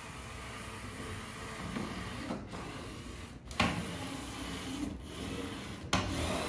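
LEGO SPIKE Prime robot's drive motors whirring as it drives across the field mat, dropping out briefly a few times between moves.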